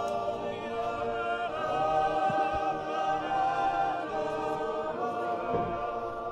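Background music: a choir singing long held chords without instruments.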